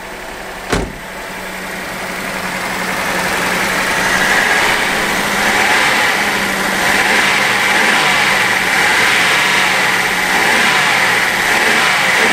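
Datsun fuel-injected inline-six idling fast, at about 1500 rpm, with a steady hiss that grows louder a few seconds in, heard as the sound of vacuum leaks.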